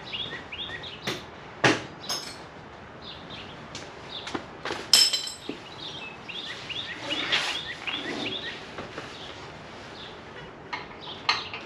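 Hand tools clinking and clanking against metal in a few sharp strikes, the loudest about five seconds in with a short ring, over steady bird chirping.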